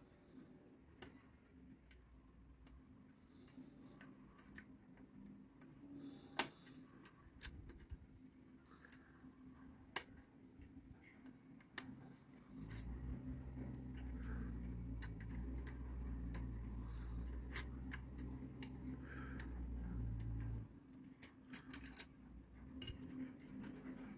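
Lock pick and wire tension tool working inside the nine-pin cross-keyway cylinder of a Kirov cross garage lock during picking: scattered faint metallic clicks and scratches. From about 13 to 21 seconds a steady low hum sits under the clicks.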